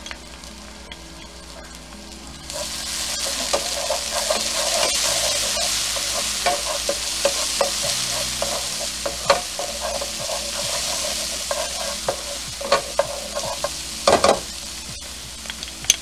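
Shallots and minced garlic sizzling in hot olive oil in a frying pan, the sizzle growing sharply louder about two and a half seconds in. A spatula scrapes and stirs across the pan throughout, with a couple of sharper knocks near the end.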